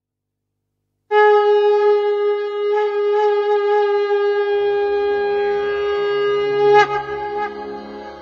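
A conch shell (shankh) blown in one long, steady note for about six seconds, ending in a brief burst. Low backing music notes come in beneath it partway through.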